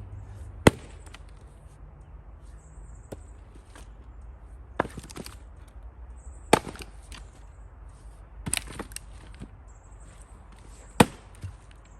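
Double-bit axe chopping and splitting firewood: about five sharp blows a couple of seconds apart, the first and last the loudest.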